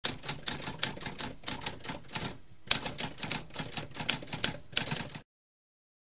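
Typewriter typing: keys struck in quick succession, several a second, with a short pause a little over two seconds in. The typing stops about five seconds in.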